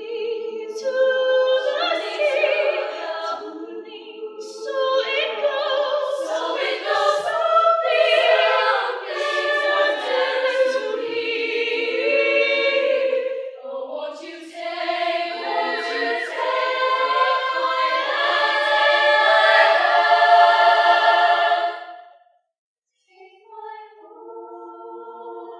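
Women's show choir singing a cappella in close harmony. Near the end the singing breaks off, and after a brief pause a softer held chord comes in.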